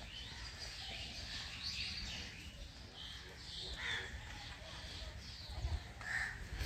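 Several birds calling and chirping at once, short overlapping calls throughout, a few louder ones about four and six seconds in, over a low rumble.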